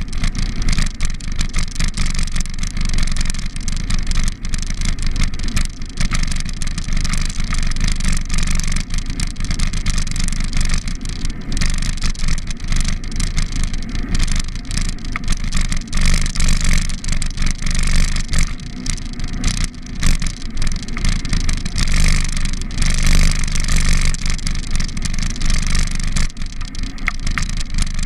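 Steady wind rumble and vibration noise on the microphone of a bicycle-mounted camera during a ride, mixed with cars passing on the road alongside.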